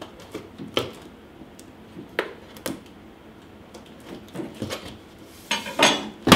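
Large cardboard shipping box being handled and its flaps pulled open: scattered taps and scrapes of cardboard, then a louder cluster of rustling and knocking near the end.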